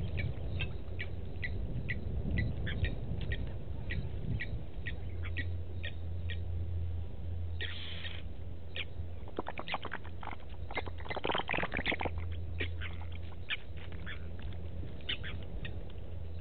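Blacksmith lapwings calling: short, sharp metallic notes repeat about twice a second, with a louder flurry of calls about eight seconds in and again between roughly ten and twelve seconds. A steady low hum runs underneath.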